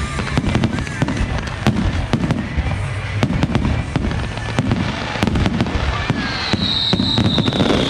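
Fireworks display: rapid, dense bangs and crackles over a low rumble, with a high steady whistle coming in about six seconds in.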